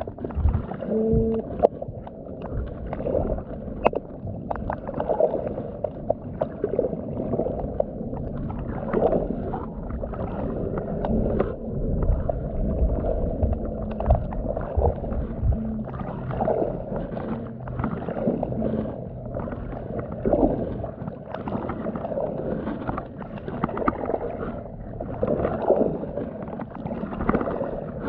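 Underwater chorus of many overlapping low, pulsing drumming calls, which the uploader takes for black drum. There are scattered sharp clicks, and a steady low hum comes in about halfway through.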